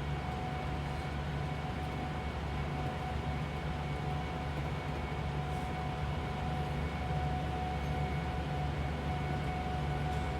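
Interior of a coach bus cruising on a highway: a steady low engine and road drone with tyre noise and a faint constant whine.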